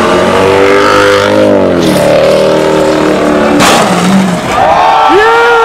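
Car engine held at high revs while the car spins donuts with its tyres spinning. Its pitch dips and climbs again about two seconds in. A short loud rush of noise comes a little past halfway, followed by wavering rising-and-falling tones near the end.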